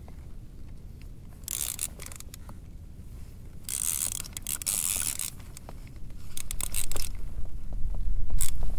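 Fishing reel's drag giving line in four short buzzing spurts of rapid clicks, the last starting near the end: a hooked flathead catfish is pulling line off against the drag.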